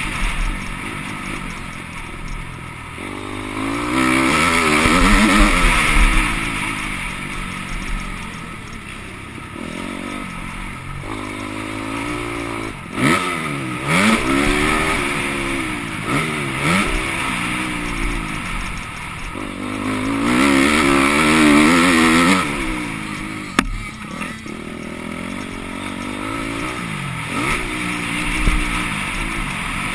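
MX2 motocross bike engine ridden hard, revving up and down as the rider opens and closes the throttle and shifts gears, with two long, loud full-throttle pulls, one a few seconds in and another about two-thirds of the way through. A few sharp knocks come from the bike hitting bumps on the track.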